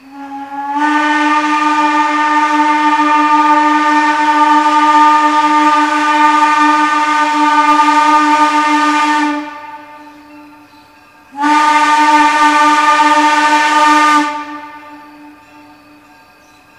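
Steam whistle of the 0-4-0T tank locomotive Jeddo Coal #85 blowing one long steady blast of about nine seconds, then after a short gap a second, shorter blast of about three seconds.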